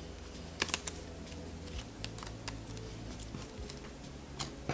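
Stiff, clay-like slime squeezed, stretched and pressed down by hand, giving faint scattered clicks and crackles, several close together about half a second in.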